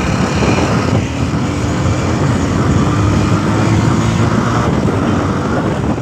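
Bajaj Pulsar 220F motorcycle's single-cylinder engine running under way, mixed with rushing wind noise on the handlebar-mounted microphone. The engine note climbs slightly over the first few seconds.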